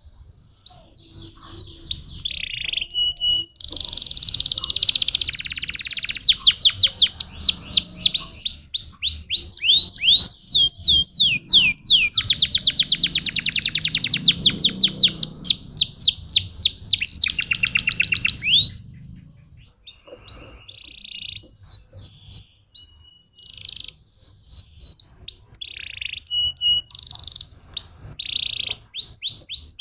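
Domestic canary singing a long, loud song of fast trills and rapidly repeated sweeping notes, breaking after about eighteen seconds into shorter phrases with pauses between them.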